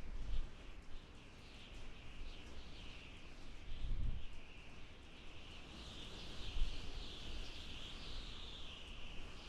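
Outdoor wind ambience: low gusts rumble on the microphone at the start and about four seconds in, over a continuous chorus of birds chirping that swells in the second half.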